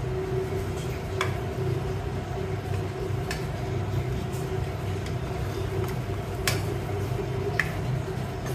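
A ladle stirring thick sambar in a stainless steel pressure cooker, knocking sharply against the pot about four times, over a steady low hum.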